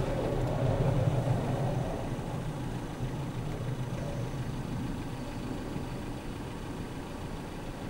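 Panavia Tornado's twin RB199 jet engines in afterburner during the take-off run: a loud, rough rumble that fades gradually after about two seconds as the jet pulls away.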